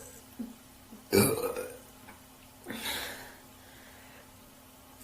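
A woman burping out loud: one loud burp about a second in, then a quieter sound about two seconds later.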